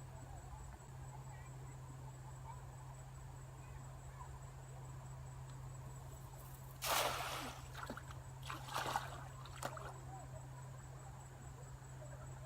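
Water splashing: one loud splash about halfway through, then a few smaller splashes and sloshes, as when someone wades and grabs for fish by hand in shallow water.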